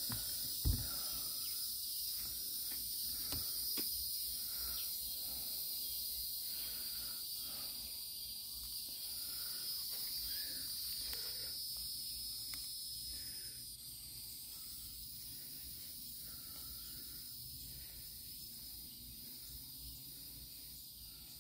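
Steady high-pitched drone of an outdoor insect chorus, with a single sharp knock about a second in.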